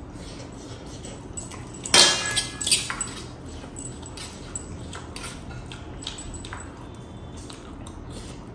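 Close-up eating sounds: spicy instant noodles being slurped and chewed, with a fork clicking and scraping on a steel plate. Two loud, short sounds come about two and three seconds in.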